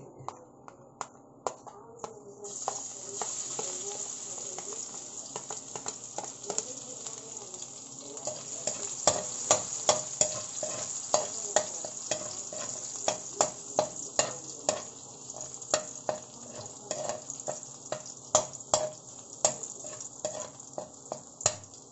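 Minced garlic sizzling in hot oil in an aluminium wok, with a metal spoon scraping and clinking against the pan as it is stirred. The sizzle starts about two and a half seconds in, and the clinks come thick and fast in the second half.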